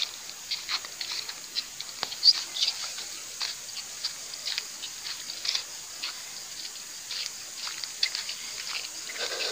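Dry leaves and twigs rustling and crackling in many irregular short clicks, over a steady high insect hum.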